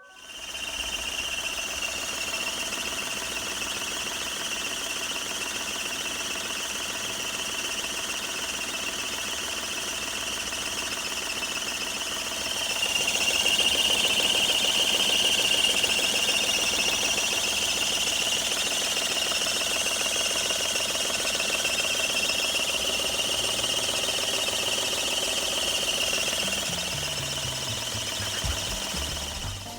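Daihatsu Tanto L350S engine running with a steady high-pitched squeal from the drive belts: the 'shubi-shubi' noise, typical of a loosely tensioned A/C belt. The squeal gets louder about twelve seconds in.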